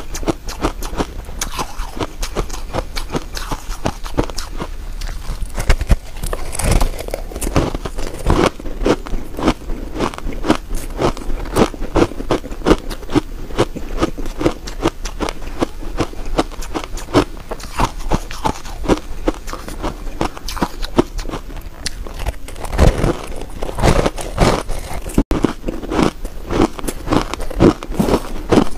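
Close-miked crunching of ice chunks coated in frozen matcha powder being chewed, a dense, continuous run of sharp crackling crunches.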